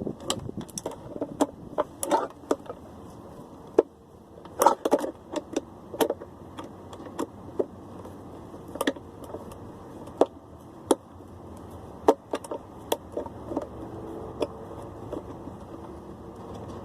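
Irregular clicks, knocks and metallic clinks of screws and tools on a discarded appliance's casing as it is unscrewed and taken apart to get at the electric motor inside.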